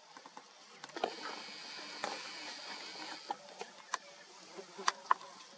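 A small motor whirs steadily for about two seconds, then stops; a few sharp clicks follow, the loudest two near the end.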